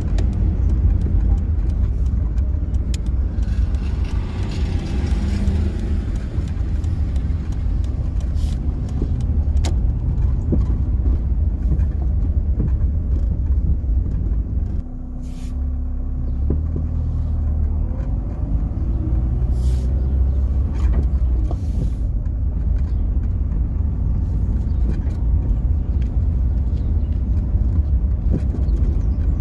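Steady low rumble of a car's engine and tyres on tarmac, heard from inside the moving car. It dips briefly about halfway through, and there are a few faint ticks.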